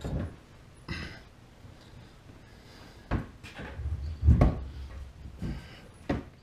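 A series of separate knocks and clunks, about half a dozen, the heaviest a cluster about four seconds in, typical of tools and parts being handled during work under a car.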